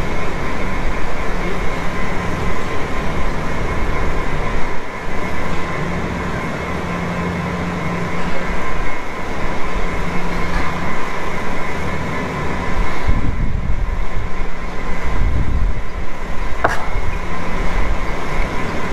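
Steady mechanical drone of the large barn circulation fans running, with a constant hum.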